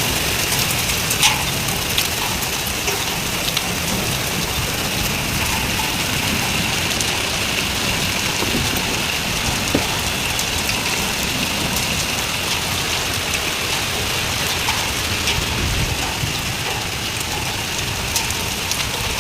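Steady rain during a thunderstorm, an even hiss scattered with sharp little drop hits.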